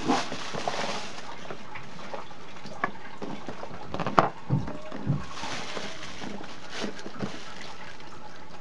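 Cardboard box and plastic bag being handled: rustling and scraping, with a sharp click about four seconds in and a couple of soft thumps just after it.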